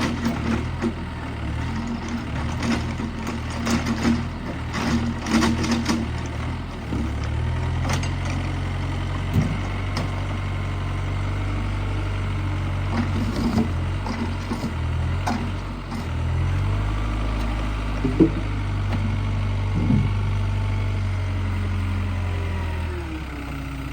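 Excavator's diesel engine running, its pitch rising twice as it takes hydraulic load. There are a run of sharp knocks in the first few seconds and a few single knocks later.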